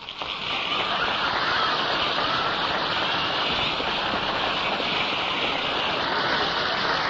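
Banquet audience applauding, a dense, even clapping that starts at once and holds steady.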